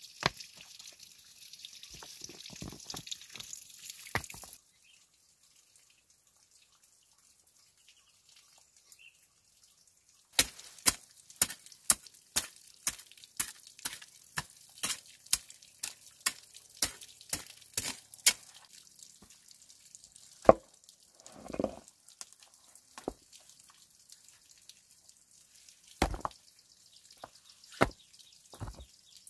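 Rough stones knocking together as they are set by hand, then a hoe chopping into loose soil in a steady run of sharp strikes about twice a second, then a few scattered knocks and a scrape as a large flat stone is bedded into the dug earth.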